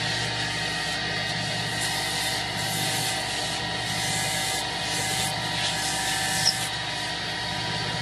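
Two-blade wood copy-turning lathe running steadily, a motor hum with several steady tones, with rushes of high hiss through the middle seconds as the spinning wooden balls are worked. A single sharp click about six and a half seconds in.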